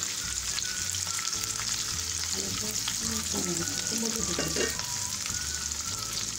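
Chopped onion, capsicum, green chillies and garlic sizzling steadily in hot oil in a nonstick kadhai, shallow-frying at the start of a stir-fry.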